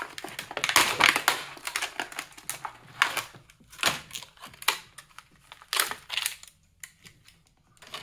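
Clear plastic clamshell blister pack crackling and clicking in the hands as it is opened to take out a multi-tool, in a series of short, irregular crinkly bursts.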